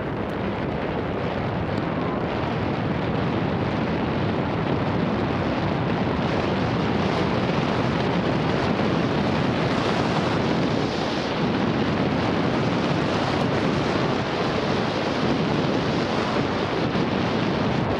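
Steady rush of wind buffeting the camera microphone while riding a bicycle along a gravel track, mixed with the even noise of tyres rolling over gravel.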